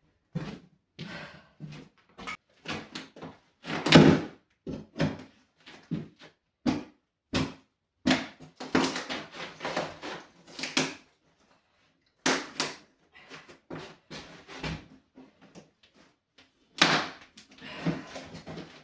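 Old wooden floorboards being pried up and handled: irregular knocks, thuds and scraping wood, with louder thuds about four seconds in and again near the end.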